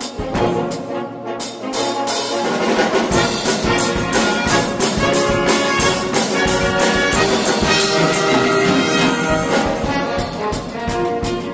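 Concert wind band playing: clarinets, saxophones and brass, including tuba, with percussion keeping a steady beat. The music grows fuller and louder about two seconds in.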